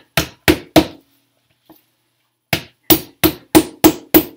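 A Pringles-can soap mold full of thick soap batter is rapped down in a plastic jug on a countertop, giving sharp hollow knocks about three a second: three, a pause, then six more. The tapping is meant to settle soap batter that has set up too thick to settle on its own.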